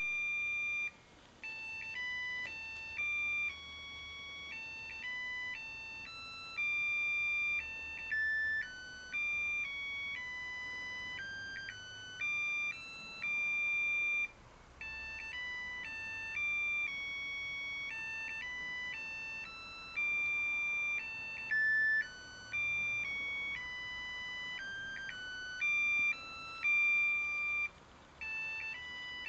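A simple electronic tune of plain beeping notes, stepping from note to note in short phrases with a few brief pauses.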